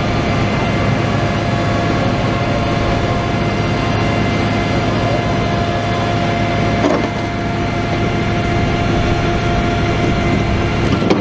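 Rocket launcher vehicle's engine running steadily with a low hum and a steady whine while its reload crane lowers a rocket pod. There are two brief knocks, one about seven seconds in and one near the end.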